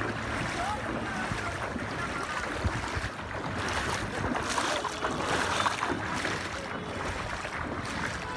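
Floodwater sloshing and splashing as someone wades through it, with wind on the microphone.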